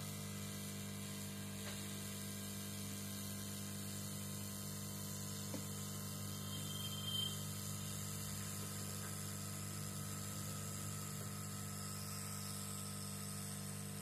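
Hot-air rework station blowing on a phone circuit board: a steady hiss over a low electrical hum, with a couple of faint ticks from tweezers on the board.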